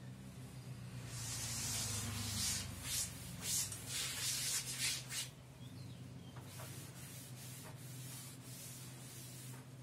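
Cloth duster wiping chalk off a chalkboard in quick back-and-forth strokes, loudest and fastest in the first half and softer after about five seconds. A steady low hum runs underneath.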